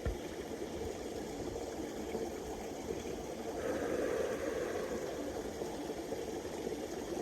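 Steady rushing outdoor background noise, swelling slightly about halfway through, with a brief low thump right at the start.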